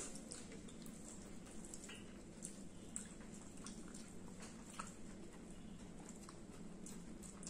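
Faint eating sounds: fingers working rice on plates and mouths chewing, heard as a scatter of small soft clicks and smacks over a low steady hum.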